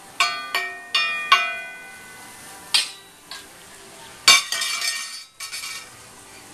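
Small stainless-steel toy pots and pans struck and clattered by a toddler, each hit ringing briefly: four quick clangs in the first second and a half, another near three seconds, and a louder clatter with ringing about four seconds in.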